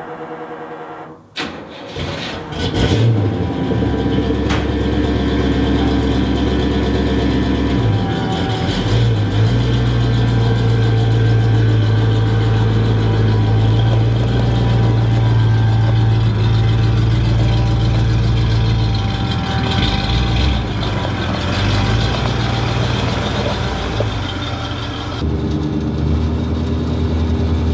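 Chevrolet C10 pickup's engine starting about two seconds in, then running steadily with a deep low note, shifting in pitch around eight seconds and again around twenty. In the last few seconds it is heard from inside the cab while driving.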